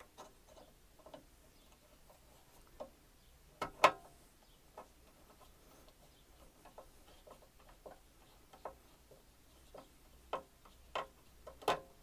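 Scattered light clicks and taps of hands handling parts on a Hayterette lawnmower's engine, with two louder knocks, one about four seconds in and one near the end.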